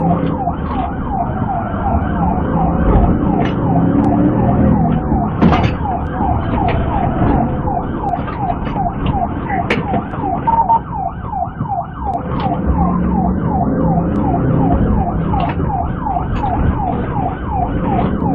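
Police car siren in a rapid, repeating yelp, sounding over the engine and road noise of the pursuing car.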